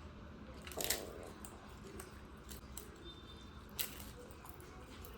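Eating sounds: quiet chewing and mouth noises, with small clicks throughout and two sharper clicks, about a second in and near four seconds.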